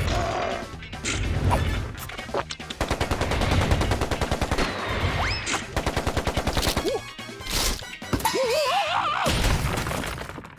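Cartoon sound effects: a fast, even rattle of clicks, more than ten a second, runs for about four seconds, then an animated caterpillar character's wavering, squeaky voice near the end.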